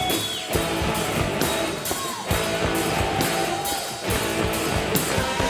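Live worship band playing an instrumental passage without vocals: sustained keyboard and guitar chords over a steady drum beat.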